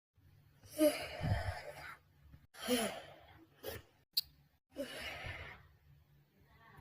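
Three yawns, each a breathy exhale with a short squeaky rise and fall in pitch, about one, two and a half, and five seconds in. A short sharp click comes just after four seconds.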